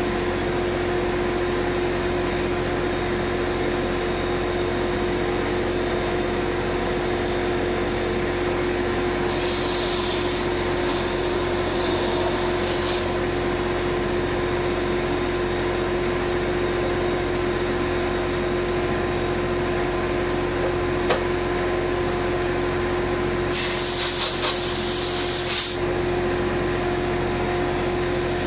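Electric power sander running steadily on the wooden box, with two stretches of sharper, higher hiss, one about a third of the way in and one near the end.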